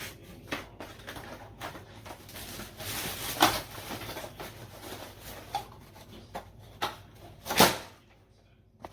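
Packaging and items being handled by hand: irregular clicks and knocks, a stretch of rustling about three seconds in, and a louder knock near the end.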